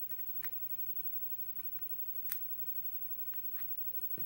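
A few sharp, small metal clicks as tweezers pick driver pins and springs out of a euro cylinder lock's pin chambers; the loudest click comes a little past halfway.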